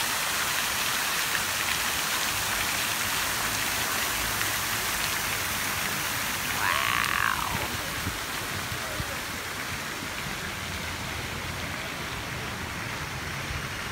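Steady splashing hiss of a two-tiered stone fountain's water falling into its basin, easing off a little after about eight seconds. About seven seconds in, a brief voice-like call rises over it.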